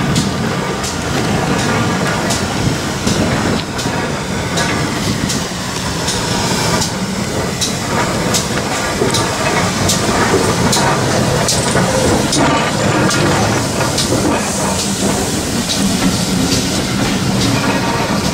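GWR 64xx pannier tank steam locomotive 6412 and its coaches rolling slowly past along the platform, wheels clicking irregularly over the rail joints. Wind rumbles on the microphone throughout.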